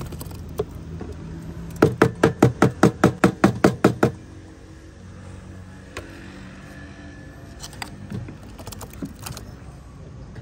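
A quick run of about a dozen sharp knocks over about two seconds, a wooden spatula rapped against a plastic bucket to knock off blended tomato, over a steady low hum.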